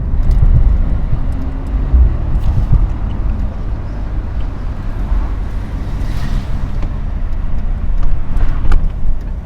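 Mercedes-AMG SL 63's 4.0-litre twin-turbo V8 running steadily while the car is driven, a low rumble.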